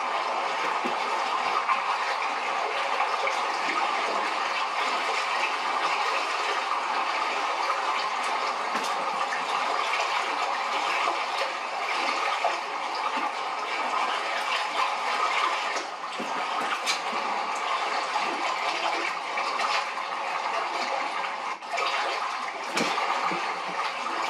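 Steady rushing, bubbling water sound, the audio of a goldfish aquarium video playing on a TV, with a few faint taps in the second half.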